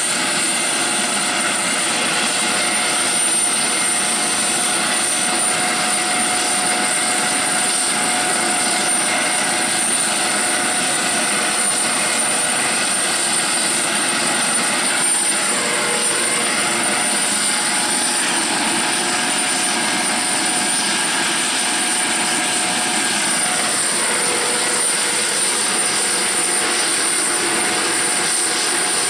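HH-65 Dolphin twin-turbine helicopter running on the ground with its rotors turning, a steady whine with a constant high-pitched tone over the rotor noise.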